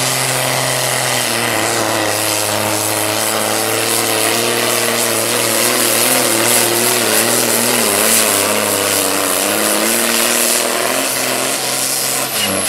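International Harvester 1066 pulling tractor's turbocharged diesel engine running flat out under full load as it drags the sled, its revs wavering through the pull. Near the end the engine note drops abruptly as the pull ends and the throttle comes off.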